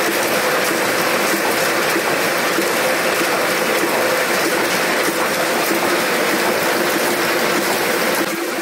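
Old chain-driven sheet-fed printing press running at speed: a steady, dense mechanical clatter of chains, gears and the sweeping gripper bar, with an even hum underneath.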